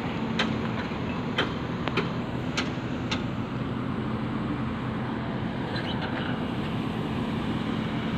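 Heavy diesel machinery engine running steadily with a low hum, and a few sharp clicks in the first three seconds.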